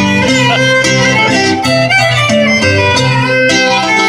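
Violin playing a Cypriot folk melody over a plucked string accompaniment with steady, changing bass notes: the instrumental break between sung tsiattista verses.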